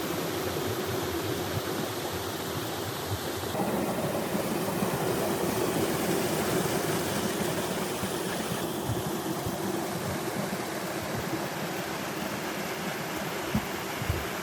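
Steady rush of flowing water, its tone shifting twice along the way.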